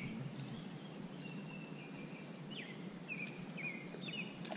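Birds calling: a series of short whistled notes, some falling in pitch and one held longer, over faint steady background noise.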